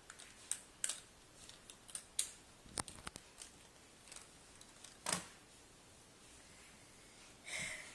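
Toy car parts clicking and snapping as they are pulled apart, in scattered sharp clicks, with a louder snap about five seconds in.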